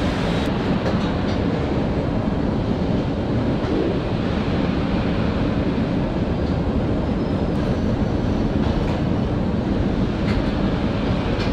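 Steady machinery noise of a car assembly hall: an even, low-heavy din with a few faint clicks.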